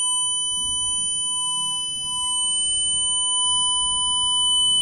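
Home security system alarm sounding one steady, unbroken high-pitched tone: a medical panic alarm triggered in a system test.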